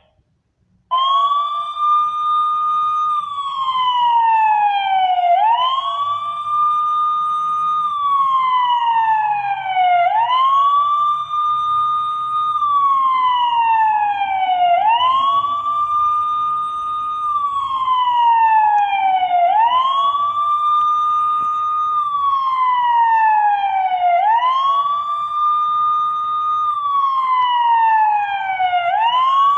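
Electronic police siren from the sound module of a 1/18 scale Ford Gran Torino model car, played as a wail. It starts about a second in; each cycle rises quickly, holds high for about two seconds, then slides down, and repeats about every five seconds.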